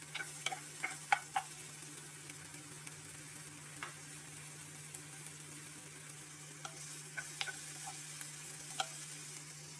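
Sliced onion and garlic frying faintly in oil in a nonstick pan: a soft even sizzle with scattered small crackles and pops, several close together at the start and a few more near the end. A steady low hum runs underneath.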